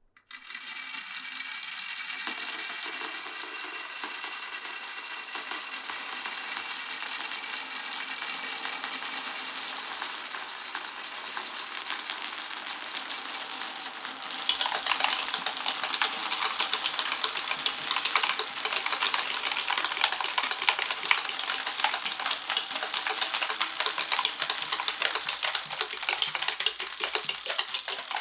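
Many marbles rolling and clattering down a marble run, a steady dense rattle of small hard clicks that grows louder and busier about halfway through and cuts off at the end.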